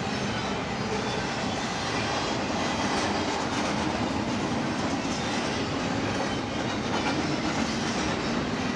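A freight train's cars rolling past at steady speed, the continuous noise of steel wheels running on the rails.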